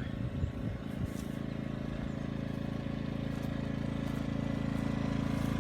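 Generac GP2200i inverter generator running at a steady speed, heard from about 30 feet away as an even engine hum that grows gradually louder.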